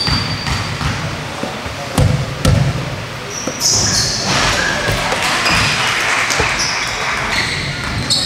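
Ball game on an indoor court: a ball bouncing, with two sharp knocks about two seconds in. From about three and a half seconds on come short, high squeaks, typical of shoes on a court floor.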